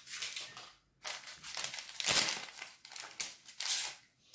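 Paper baking-powder sachet crinkling as it is handled, in several short rustling bursts, loudest about two seconds in.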